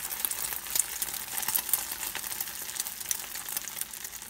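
An egg-coated chana dal kabab patty shallow-frying in oil in a frying pan: a steady sizzling hiss with frequent small crackling pops as the egg coating spatters.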